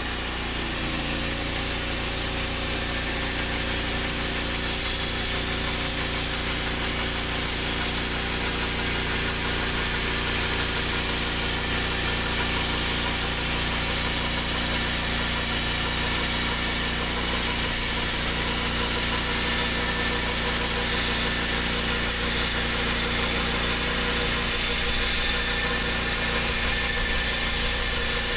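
An engine runs steadily with a strong high hiss over it, its pitch lifting slightly about a second in; most likely the engine of a Norwood HD38 portable bandsaw mill.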